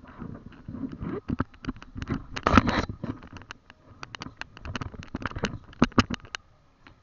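Handling noise from a handheld camera being moved about: irregular clicks and rubbing, with a louder rustle about two and a half seconds in.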